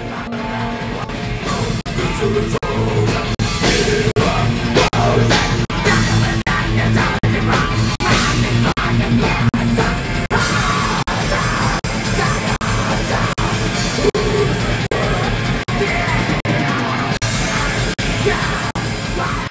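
A heavy metal band playing live: distorted electric guitar and drums, with a singer yelling the vocals.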